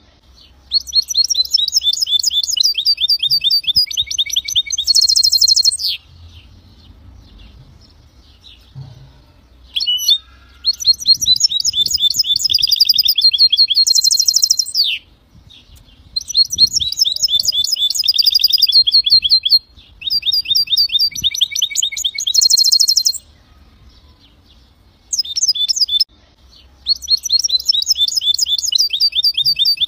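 Goldfinch × canary hybrid singing: rapid, high trilled phrases a few seconds long, separated by short pauses, several of them ending in a dense buzzy burst.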